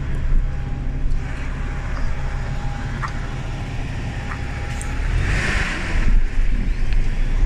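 Steady low rumble of a city bus engine running at the stop, with a few light clicks and a brief burst of hiss about five seconds in.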